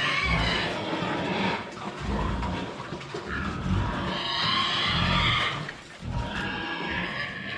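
Farm animal calling loudly, two drawn-out hoarse cries, the first about three seconds in and the second near the end.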